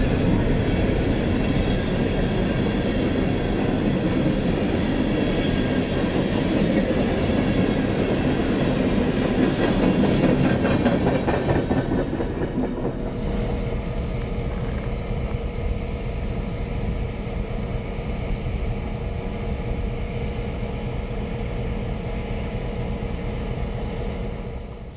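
Freight train rolling past, its wheels clicking over rail joints. The noise is loudest in the first half and eases to a steadier, quieter rumble about halfway through.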